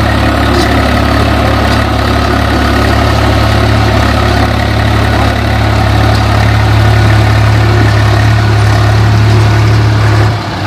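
Diesel farm tractor engine running at steady low revs while towing a trailer loaded with soil, a deep even hum. The sound dips and changes briefly near the end.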